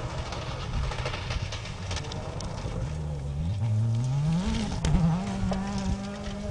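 Rally car engine revving hard on a gravel stage, over a rushing hiss. Its note climbs, dips briefly at a gear change about four and a half seconds in, then holds a steady high pitch.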